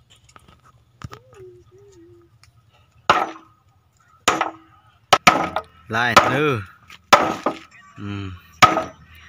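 Claw hammer driving nails through a wooden batten into weathered boards: sharp, unevenly spaced blows, about eight in all, some with a brief metallic ring. A person's voice comes in briefly between the later blows.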